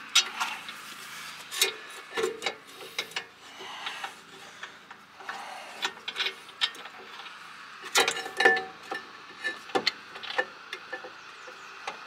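Scattered metal clicks and light knocks as a bolt is put back into a rear disc brake caliper, with a cluster of louder clicks about two-thirds of the way through.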